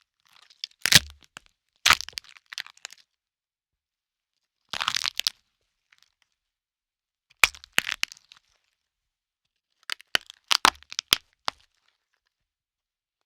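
Bone-crack sound effects: a series of sharp cracks and crunchy snaps, each followed by dead silence. About five in all, the one about five seconds in a longer crunch and the last a quick run of several snaps.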